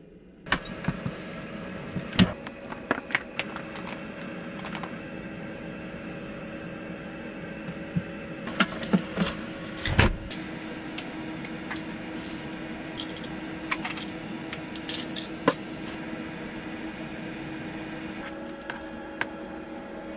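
A steady mechanical hum from an appliance running, with scattered clicks and knocks of things being handled and a heavy thump about ten seconds in.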